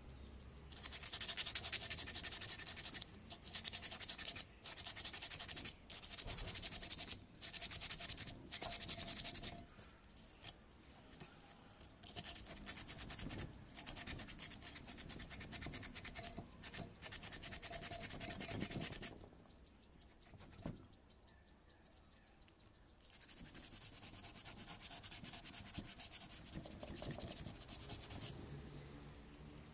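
Hand scrubbing of a kerosene pressure lamp's metal fuel tank, a rapid hissing rub in runs of strokes with short pauses. It goes quieter for a few seconds past the middle, then picks up again.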